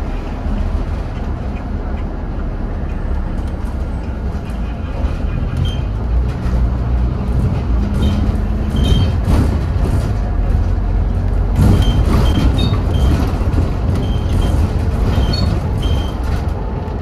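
Interior sound of a Scania N230UD double-decker bus under way, heard from inside the cabin: the diesel engine and road rumble run steadily and grow louder about halfway through, with short rattles and high squeaks from the body.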